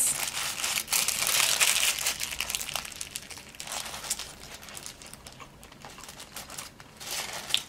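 Paper burger wrapper crinkling as the cheeseburger is handled, loudest in the first three seconds. After that come fainter small clicks and soft sounds of chewing the burger.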